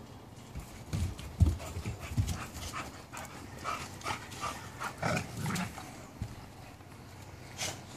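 Pit bull puppies play-fighting: irregular scuffles and thumps mixed with short dog sounds, the loudest about a second and a half in.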